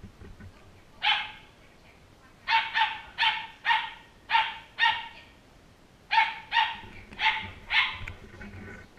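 A dog barking repeatedly with fairly high-pitched barks. There is one bark about a second in, then a quick run of six, a short pause, and four more.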